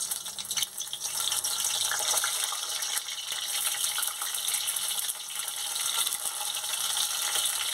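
Hot refined vegetable oil sizzling in a metal wok as stuffed pointed gourds (parwal) are laid in to fry: a steady hiss with light crackling.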